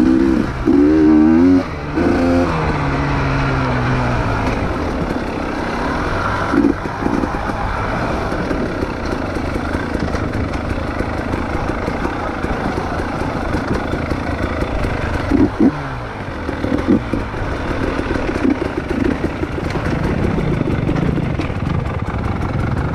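Off-road trail motorcycle engine running and revving, its pitch rising and falling a few times in the first seconds and then settling into a steady drone, with a few short knocks along the way.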